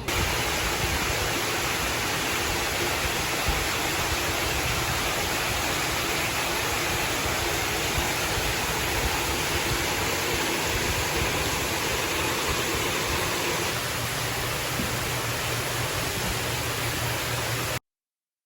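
Steady, even rushing noise with no distinct events, cutting off abruptly near the end.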